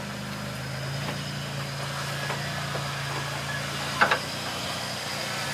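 Off-road truck engine running at low, steady revs while crawling the trail, with one short sharp sound about four seconds in.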